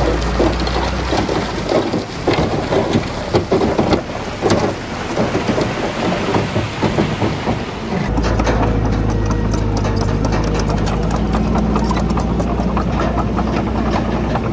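Heavy diesel earthmoving machine running, with an irregular clattering and knocking of rock and soil from about one to eight seconds in. After that the engine settles into a steady idle.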